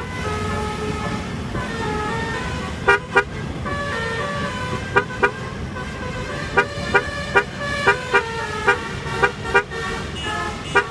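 Basuri 'telolet' multi-tone bus horn playing a tune, its notes stepping up and down in pitch. About a dozen short, sharp toots come through the middle and later part, over a steady low rumble.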